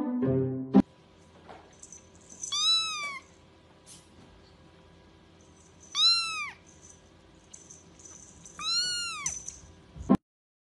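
A young kitten meowing three times, each a high-pitched call of about half a second that rises and then falls, a few seconds apart.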